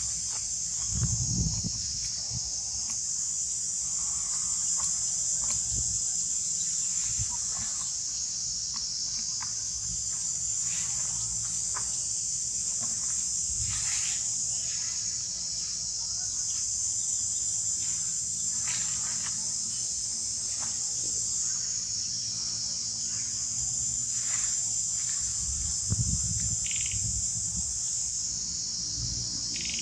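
A steady, high-pitched drone of insects, with scattered short faint chirps over it and a couple of low thumps, about a second in and near the end.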